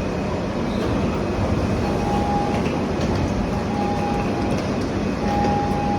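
Platform screen door warning beep: a single-pitched tone sounding three times, about a second and a half apart, over a steady low train and station rumble.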